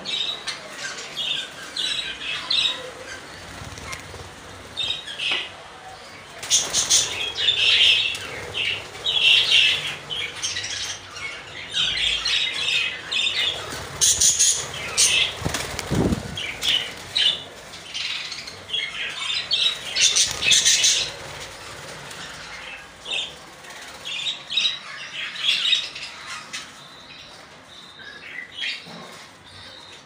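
Budgerigars chirping and chattering in short, irregular bursts, with flurries of wing flapping that are loudest about a quarter, half and two-thirds of the way through.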